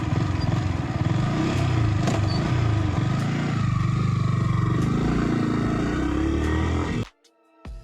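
Motorcycle engine running on the move with wind rush, its pitch rising and falling as the revs change. The sound cuts off abruptly near the end.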